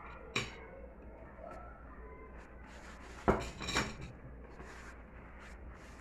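Tableware clinking on a kitchen counter: a sharp knock about half a second in, then the loudest knock about three seconds in, followed by a brief clatter.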